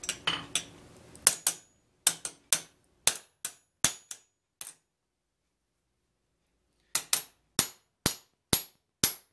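Hand hammer striking a steel hinge cold on an anvil, with a piece of pipe under it around the hole, to drive a round-head bolt home without flattening the hinge's curve. Sharp metallic blows with a short ring: about ten, a pause of about two seconds, then six more at about two a second.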